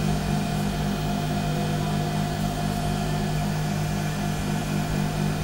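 Electric sewing machine running steadily at an even speed, stitching a seam.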